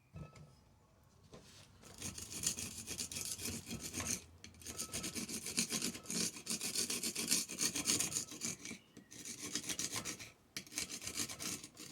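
Rapid, uneven hand scraping strokes on a freshly cast refractory ribbon-burner block, beginning about two seconds in and stopping briefly a few times.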